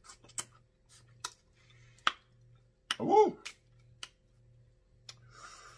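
Close-miked mouth sounds of a person eating crab: a string of wet lip-smacking clicks while chewing, with a short hummed "mm" of enjoyment about three seconds in, the loudest sound. A soft hiss comes near the end.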